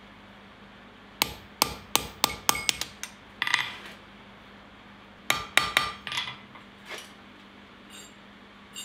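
Hand hammer striking hot steel on an anvil, each blow ringing. A quick run of about eight blows comes first, then a brief clatter. A second run of about five blows follows, then a few lighter taps.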